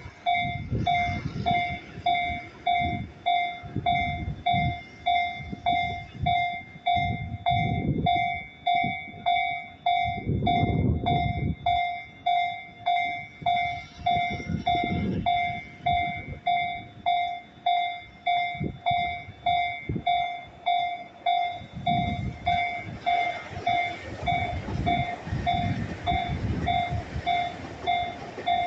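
Japanese level-crossing warning bell ringing steadily, a ding a little more than once a second. Under it a Tokyu 2020 series electric train rumbles by, its wheels clattering over the rail joints, with a louder rush of passing noise near the end.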